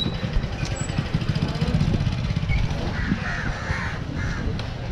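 Crows cawing twice, about three and four seconds in, over a steady low rumble of background noise.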